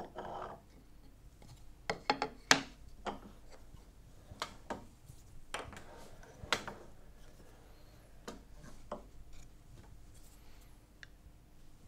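Scattered sharp clicks and light knocks, about a dozen spread irregularly, with faint rubbing between them: small carving tools and the wooden panel being handled on a wooden workbench.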